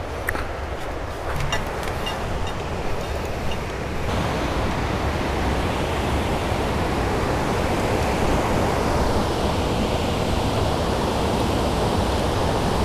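Steady rush of water pouring through a spillway, growing louder about four seconds in, with a few light clicks in the first few seconds.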